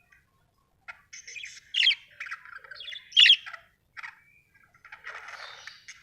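Budgerigar chirping and chattering: after a quiet first second, a run of warbling chirps with two loud sharp calls, then a scratchy chatter near the end.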